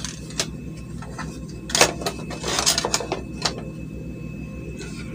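Plastic clicks and knocks of a digital multimeter being handled and set down on a circuit board, the loudest about two seconds in, over a steady low hum.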